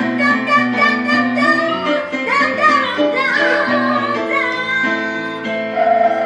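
A woman sings live into a handheld microphone over instrumental accompaniment, her voice bending and wavering through a run about halfway through.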